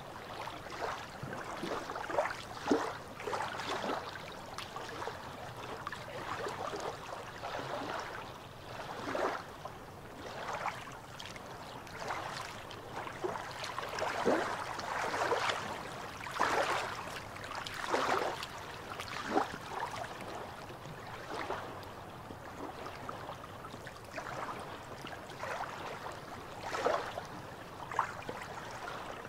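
Small waves lapping and splashing against shoreline rocks, with irregular soft splashes every second or two.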